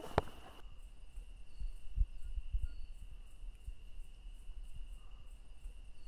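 Night-time outdoor ambience of crickets and other insects chirping steadily as one high, unbroken tone, with a short chirp repeating about once a second. A sharp click sounds just after the start, and a few soft low thumps follow.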